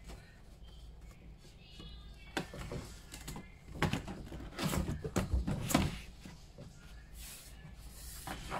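Irregular knocks, rattles and scrapes of a plastic corrugated sheet against a wooden shoji frame as it is handled and pawed at, busiest in the middle few seconds.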